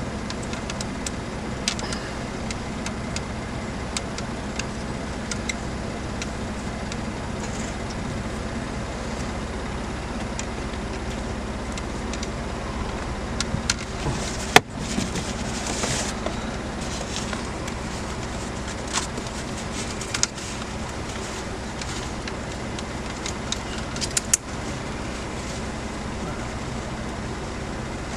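Steady low hum of a Ford F-150 idling, with scattered light clicks and knocks from hand work on steering-column parts; one sharp, loud click about halfway through.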